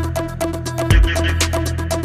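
Background electronic dance music with a steady beat: heavy kick drum hits, quick hi-hats and a sustained bass line.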